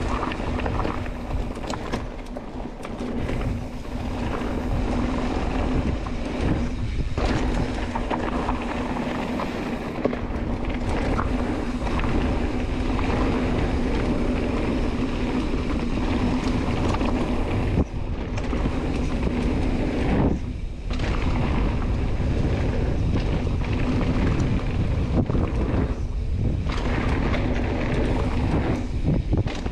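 Mountain bike running down a rocky dirt trail: a continuous rumble and rattle of tyres and bike over rock, with wind on the microphone and a steady hum throughout.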